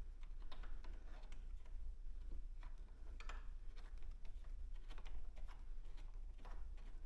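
Faint, irregular clicks and light taps of small metal parts being handled and fitted by hand, over a steady low hum.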